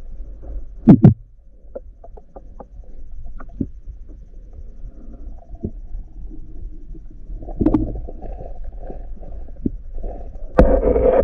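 Muffled underwater sound as heard through a submerged camera: a steady low rumble with scattered clicks and knocks, a loud double thump about a second in, and a louder rushing burst near the end.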